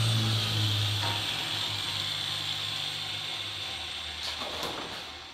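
Electric motor of a workbench machine running down: a high whine slowly falls in pitch over a low hum, and both fade away over a few seconds as the motor coasts to a stop.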